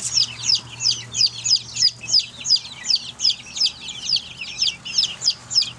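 A brooder full of young chicks peeping continuously: many overlapping, high-pitched peeps, about three a second.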